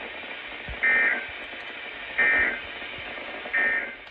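Emergency Alert System end-of-message code: three short, shrill data bursts about a second and a half apart, signalling that the weather warning broadcast has ended. Behind them is a steady radio hiss that cuts off suddenly at the end.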